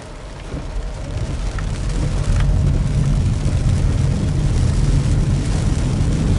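Car driving on a wet road in the rain, heard from inside the cabin: engine, tyre and rain noise, growing louder about two seconds in as the car picks up speed, then holding steady.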